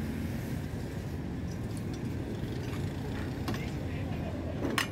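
Steady low background rumble of a tyre workshop, with a few faint clicks and a sharper metallic click near the end.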